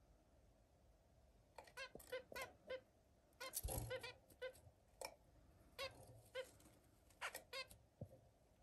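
Zebra finches giving short, nasal beeping calls, one after another in small clusters, after a quiet first second or so. A brief, louder burst of noise comes a little before the middle.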